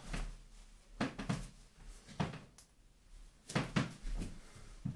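Several short, sharp clicks and knocks spaced irregularly, with quiet gaps between them: the thumb switch of a rail-mounted light-and-laser unit being pressed on and off, with handling of the gun.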